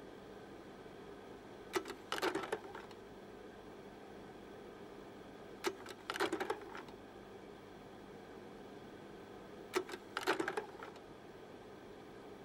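Short bursts of mechanical clatter, three in all, about four seconds apart. Each begins with a sharp click and rattles for about half a second, over a faint steady hiss.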